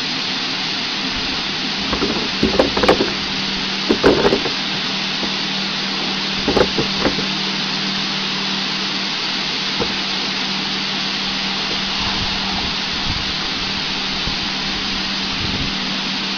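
Water hissing steadily from the spray bars of a carrot wash line, with a steady low hum underneath. A few louder knocks come between about two and seven seconds in.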